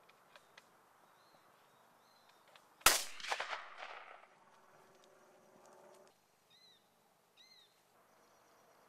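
A single shotgun shot about three seconds in, its report ringing on with echoes for about a second.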